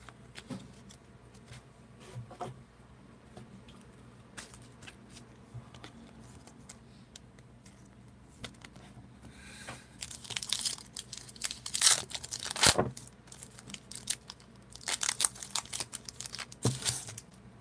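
A foil 2018 Diamond Kings trading-card pack being crinkled and torn open, with sharp rips about halfway through and more crackling near the end. Before that, only faint ticks of cards being handled and slipped into a plastic sleeve.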